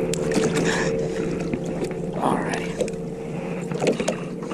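A boat motor hums steadily at an even pitch, with a few sharp knocks and bumps against the boat.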